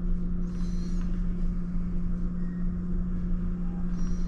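A steady low hum at one constant pitch over a constant low rumble and faint hiss.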